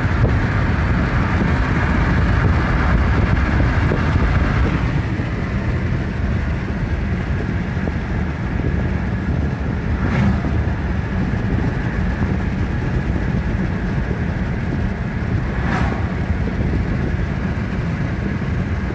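A car driving along a road, heard from inside the cabin: a steady low rumble of road and engine noise, with two brief taps about ten and sixteen seconds in.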